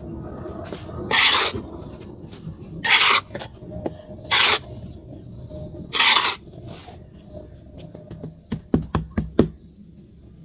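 Charcoal being scraped while it is shaped: four short rasping strokes a couple of seconds apart, then a quick run of small clicks and knocks near the end.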